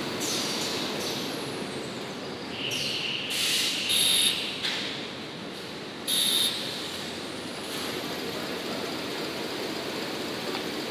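Toilet paper production line machinery running with a steady mechanical noise. Brief high-pitched squealing hisses stand out about three to four seconds in and again at six seconds.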